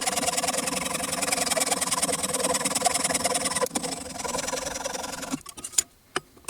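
A motor-driven machine running steadily, then cutting off suddenly about five seconds in, followed by a few sharp clicks.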